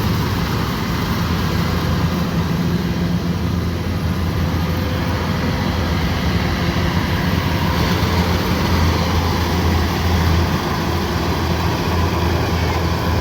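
Kubota DC108X combine harvester running steadily, with a strong low engine hum under dense machinery noise.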